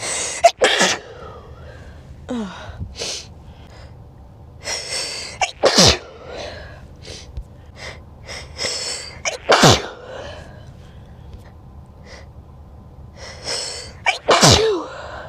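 A person sneezing four times, about four seconds apart. Each sneeze is preceded by a quick in-breath and ends in a falling voiced note. These are natural sneezes set off by a tickle in the nose, not by illness.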